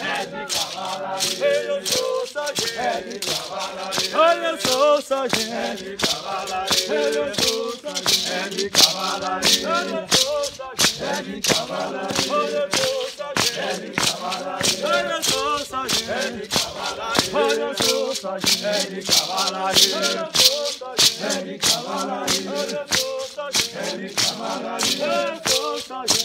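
Group of voices singing a chant together, with maracas shaken in a steady beat, as in a Kariri-Xocó ritual dance song.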